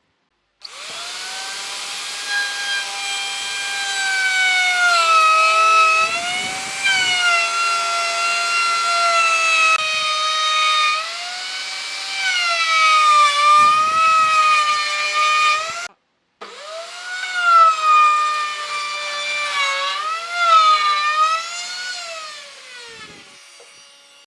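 A handheld electric power tool's motor whining at high speed while working wood, its pitch dipping and recovering as it bites in under load. It cuts out abruptly about two-thirds through, spins straight back up, and winds down with a falling pitch near the end.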